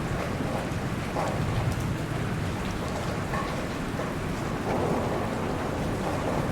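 Steady rainfall on a lake, an even hiss with faint scattered drop ticks over a low rumble.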